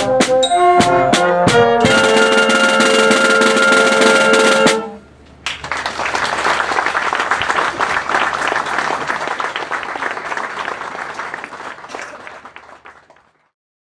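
A student wind band of trombones, euphonium, trumpets, alto saxophone and drum kit plays a few short accented chords, then a long held final chord that cuts off about five seconds in. After a brief pause, applause follows and fades away.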